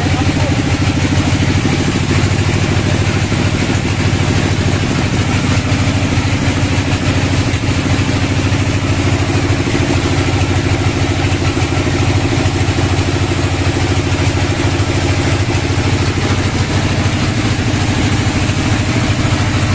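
The bandsaw mill's engine running steadily at idle, a low, even drone.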